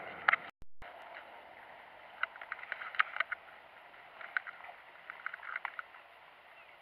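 Scattered light clicks and ticks in short clusters from a baitcasting reel and rod being handled during a lure retrieve, over a faint steady hiss.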